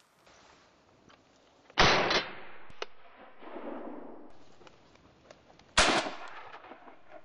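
Two shotgun shots about four seconds apart, each a sharp report that dies away in a short echo: wood pigeons being shot over decoys.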